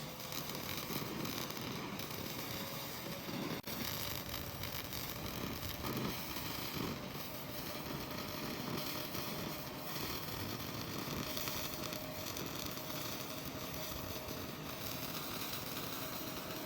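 Handheld laser cleaning machine running, a steady crackling hiss with a faint whine under it, broken by one sharp click about three and a half seconds in.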